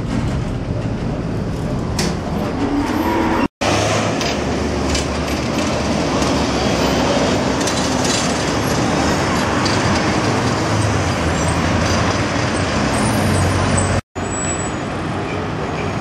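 Tatra tram running on street track amid road traffic: first heard from the moving tram, then as a tram rolls past with a low steady hum. The sound breaks off abruptly twice, about three and a half and fourteen seconds in.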